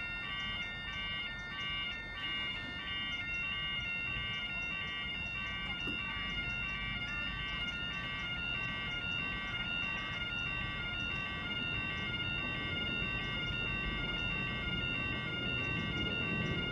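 Railway level crossing warning alarm sounding continuously: an electronic yodel alarm, a repeating pattern of alternating tones over a steady high tone. It warns road users that a train is approaching while the barriers lower.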